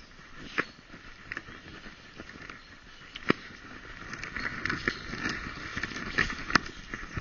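Dog moving over a path of dry leaves, heard from a camera strapped to its body: rustling and crunching leaves under its paws, with sharp clicks now and then. The rustling gets busier from about four seconds in, and the loudest clicks come about three seconds in and near the end.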